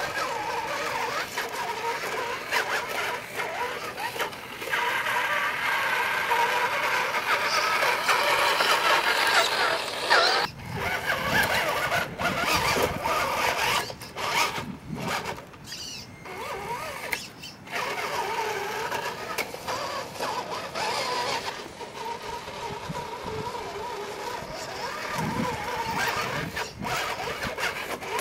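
Electric motor and gearbox of a Tamiya CC01 radio-controlled crawler whining as it climbs over loose bricks. The whine stops and starts again several times in the middle.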